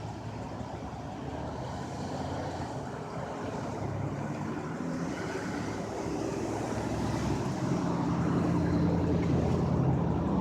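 Motor vehicle engine and road noise, a steady rumble that slowly grows louder, with the engine tone stronger near the end.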